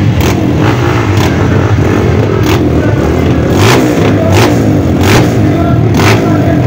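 A group of Honda CRF trail motorcycles idling together with revs rising and falling as engines are blipped, loud and continuous, with brief sharp crackles every second or so.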